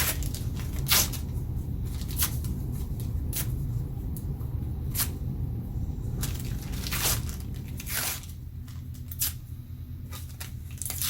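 Brown paper being torn into scraps by hand: a series of short rips at irregular intervals.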